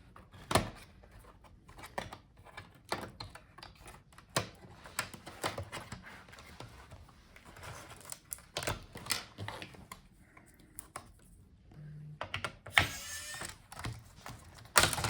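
Plastic clips of an MSI GF75 Thin laptop's bottom case clicking loose one after another as a plastic pry tool is worked along the seam between the bottom case and the palmrest. The clicks are sharp and irregular, with a longer scraping stretch near the end.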